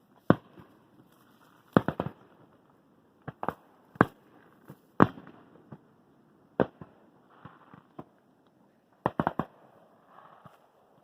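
Fireworks going off: a string of sharp bangs at irregular intervals, some coming in quick clusters of three or four, with faint crackling between them.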